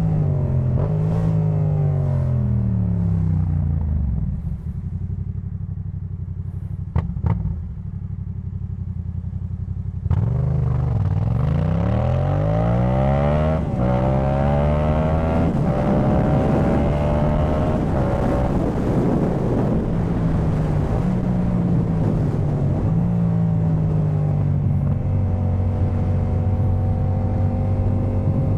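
Yamaha MT-07's parallel-twin engine through a Jeskap K4 full exhaust. Its revs fall as it slows, it idles steadily for about six seconds, then it pulls away with revs rising through several quick upshifts and settles into a steady cruise.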